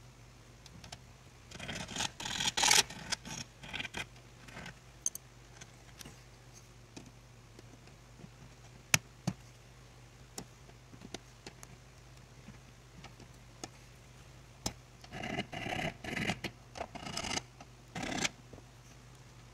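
Copper wire being twisted with pliers and rubbed against a turned wooden bowl: scratching and scraping in two bursts, about two seconds in and again from about fifteen to eighteen seconds, with scattered small clicks, one sharper near the middle. A faint low hum lies underneath.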